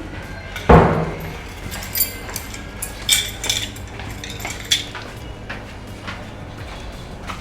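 A single heavy thud about a second in, then a scatter of light metallic clinks and jingles, like small metal objects knocking together.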